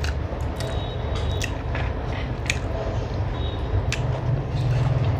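Close-up eating sounds: chewing and the wet squish of fingers mixing rice and chicken curry on a steel plate, with a few sharp clicks. A steady low rumble runs underneath.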